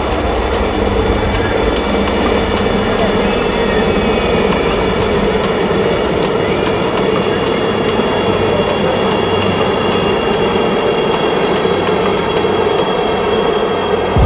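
A formation of helicopters flying past overhead: a steady high turbine whine over a dense, continuous rush of rotor and engine noise.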